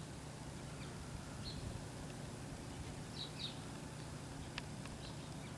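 Outdoor ambience: a steady low background hum with a few brief, faint bird chirps, two of them close together about three seconds in, and a couple of sharp clicks near the end.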